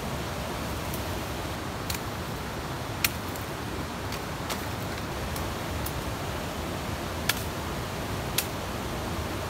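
A machete chopping bamboo stems: about half a dozen sharp knocks at uneven gaps of one to one and a half seconds, over the steady rush of a stream.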